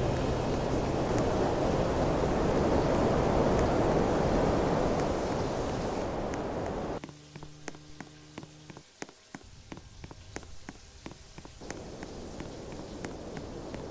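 Fan blowing air with a steady whooshing noise. About seven seconds in it cuts abruptly to a quieter hum with faint, regular ticks, and the whoosh partly returns near the end.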